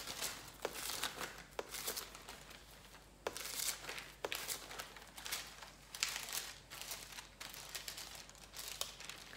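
The pages of a Bible being leafed through while someone looks for a passage: irregular rustles of thin paper with small clicks and taps.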